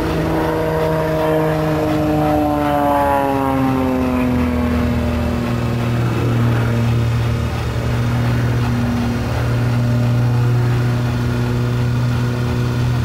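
Piston propeller engine of a small aerobatic plane flying past. Its drone drops in pitch about two to four seconds in as it passes, then holds a steady tone as the plane climbs away.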